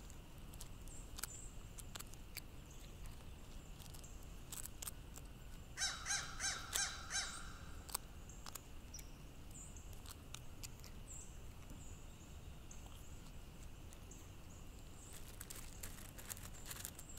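A crow gives a quick run of about five caws about six seconds in, among scattered sharp taps of a bill pecking at peanuts and mealworms on gravel.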